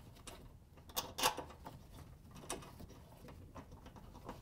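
A few faint metallic clicks and scrapes as the ring terminals of two red wires are worked off a threaded stud on an electric range's terminal block.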